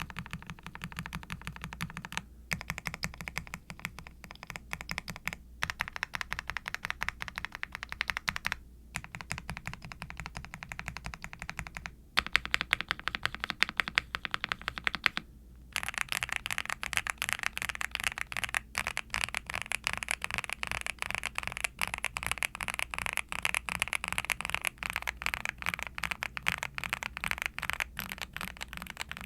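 Typing on a Nuphy Kick75 HP mechanical keyboard (ABS plastic case, polycarbonate plate, full switch, plate and case foam) with lightly lubed Kailh Cream Pro linear switches and double-shot ABS keycaps. The keystrokes come as fast runs broken by brief pauses every few seconds, and become faster and unbroken about halfway through.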